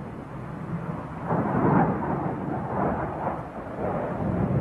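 Jet aircraft rumble from a U-2 spy plane flying overhead, a rough, wavering roar that grows louder about a second in.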